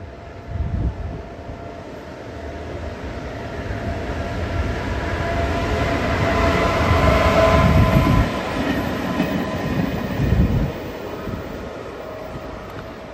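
Electric freight locomotive hauling freight wagons through a station, growing louder as it nears and passes about seven to eight seconds in, then fading. Its steady whine is heard over the running noise of the wheels on the rails.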